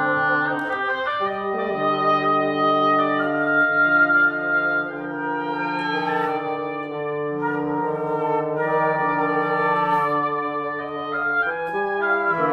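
Woodwind quintet (flute, oboe, clarinet, French horn and bassoon) playing a contemporary concert piece: several instruments holding overlapping sustained notes, the chord shifting every second or two.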